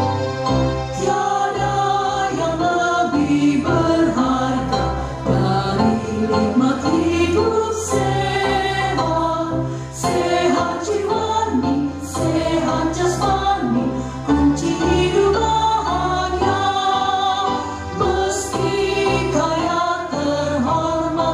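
A roomful of people singing a song together in unison, with instrumental accompaniment.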